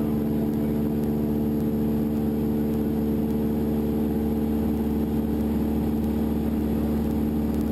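Single-engine light aircraft's piston engine and propeller running steadily in flight, one even drone.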